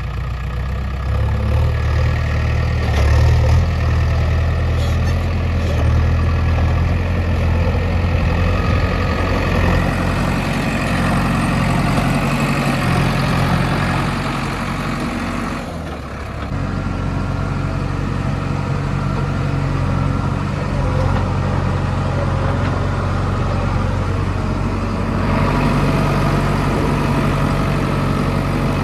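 Heavy diesel engine running steadily, its pitch and load shifting a little. There is a brief drop in level about halfway through.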